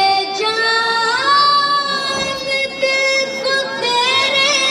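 A boy singing a Hindi film song into a handheld microphone. He holds long, drawn-out notes that glide slowly, and adds a wavering ornament near the end.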